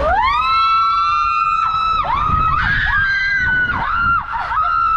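Riders screaming as they go down an enclosed tube water slide. One long scream rises in pitch and is held for about two seconds, then breaks into a string of shorter wavering screams.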